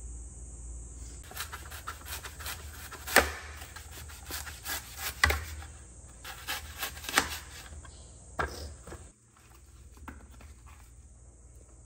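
Kitchen knife cutting an apple into pieces: crisp slicing and a string of sharp knocks of the blade against the plate, several of them much louder than the rest, stopping about nine seconds in.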